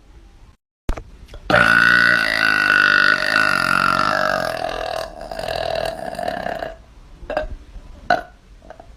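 A woman's long, drawn-out burp starting about a second and a half in, loud at first and trailing off after a few seconds. A few short clicks follow near the end.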